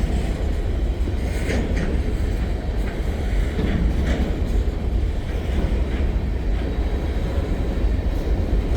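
Freight cars of a long freight train rolling past with a steady low rumble of wheels on rail, with a few faint knocks along the way.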